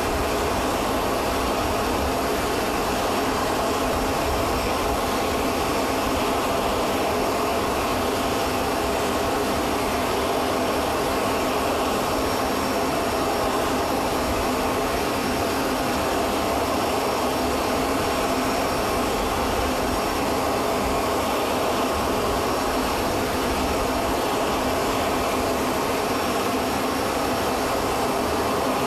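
Steady jet turbine noise: a constant roar with a high, thin whine on top, unchanging throughout.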